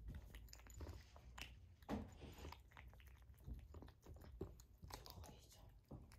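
Cats and kittens eating from ceramic bowls: faint, irregular chewing with small clicks, one a little louder about two seconds in.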